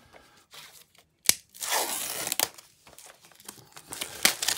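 Clear plastic shrink wrap being torn and peeled off a Blu-ray steelbook case: a sharp snap about a second in, then crinkling and crackling plastic, with more crackles near the end.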